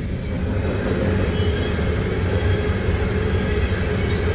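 Loaded coal train rolling past, a steady low rumble of its wheels on the rails.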